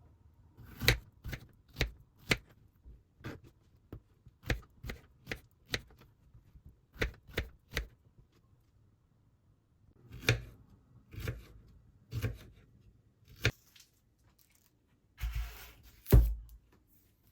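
Kitchen knife cutting on a cutting board, likely slicing strawberries: sharp, irregular taps about two a second, a short pause, then more taps, a brief rustle and one louder knock near the end.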